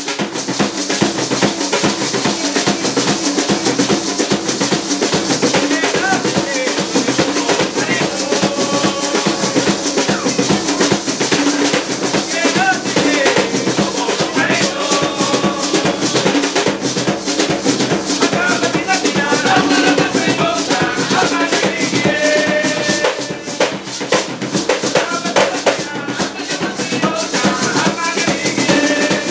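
Traditional Garifuna primero and segunda drums, large hand-beaten drums, played in a dense, continuous rhythm with gourd maracas shaking along. Men's voices sing over the drumming from about six seconds in.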